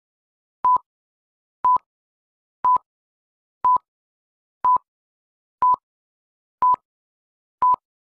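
Film-leader countdown beeps: a short, steady, high beep once a second, eight times, with silence between them.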